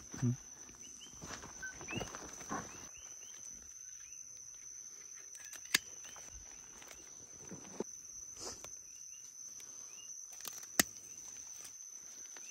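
Night-time chorus outdoors: a steady high-pitched insect trill, with short rising chirps repeating through it. Two sharp clicks stand out, about six and eleven seconds in.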